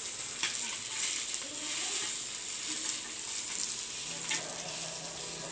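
Fish shallow-frying in oil on a dosa pan, a steady sizzle, with a few sharp clicks and scrapes of a steel spatula as the fried pieces are lifted out.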